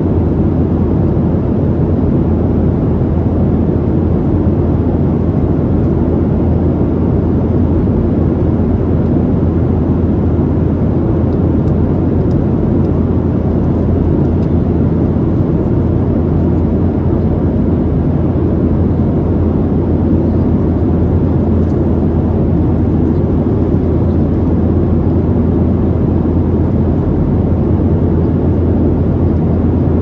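Steady low jet engine and airflow noise inside the passenger cabin of a Boeing 737-700, its CFM56-7B engines holding an even power setting with no rise or fall.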